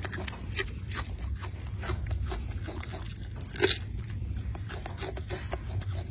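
Golden snub-nosed monkey biting and chewing crisp lettuce stalks: a quick run of crunches and clicks, the loudest crunch a little past halfway.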